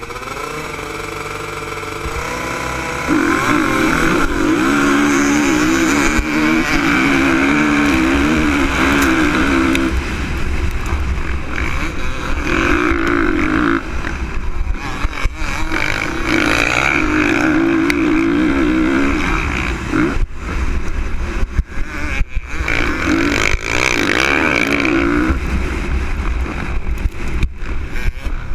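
Single-cylinder four-stroke motocross engine of a 2013 Honda CRF450R under race throttle. Its pitch climbs over the first few seconds and it gets much louder at full throttle about three seconds in. After that it rises and falls with shifts and corners, dropping off briefly several times where the rider rolls off.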